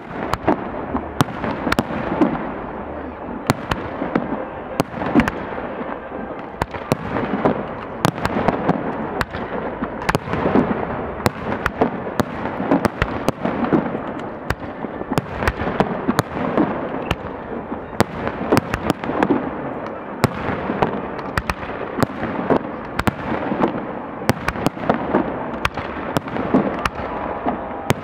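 Fireworks display going off without pause: dense sharp cracks and pops, several a second, over a continuous rumble of bursting shells and their echoes.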